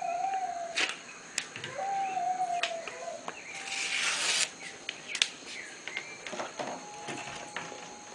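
Micropore surgical tape being pulled off its roll and cut into strips, with a ripping pull lasting about a second midway and a few small clicks. A bull terrier puppy gives two short steady whines, one at the start and one about two seconds in.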